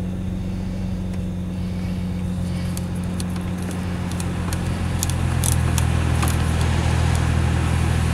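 Steady low hum, growing louder about five seconds in, with a few light clicks and rattles around the middle.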